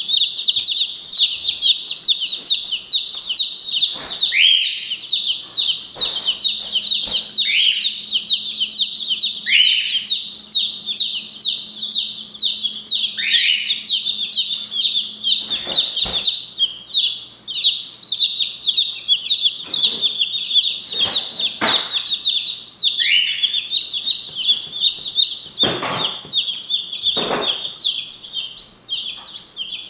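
Brahma chicks in a brooder peeping all at once: dense, high-pitched cheeping from many chicks, with a few brief knocks here and there.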